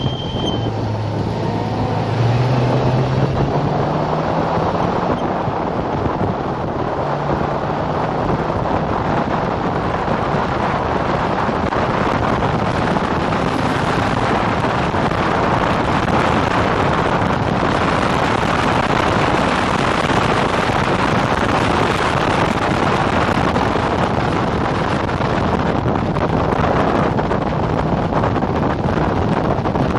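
Onboard sound of a single-seater race car at speed: the engine running hard under heavy wind rush buffeting the camera microphone. The engine note rises in pitch over the first few seconds as the car accelerates, then is largely buried in the wind noise.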